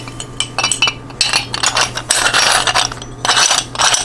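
Parts of an electric meat grinder being handled and fitted back together, a run of sharp clinks, clicks and short scrapes.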